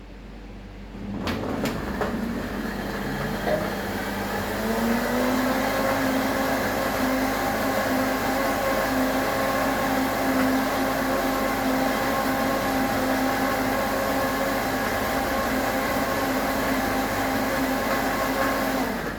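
Countertop blender motor blending a smoothie of orange juice, frozen fruit and ice. It starts up again about a second in, its pitch rising over a few seconds as it comes up to speed. It then runs steadily and stops just before the end.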